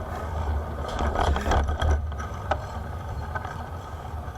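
Wind rumbling on the camera microphone of a bicycle being ridden uphill, with a few light clicks from the bike.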